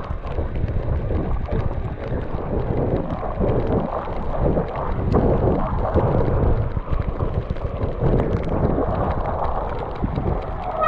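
Wind buffeting the microphone of a moving e-bike, a loud low rumble that swells and dips in gusts, mixed with the noise of riding through snow.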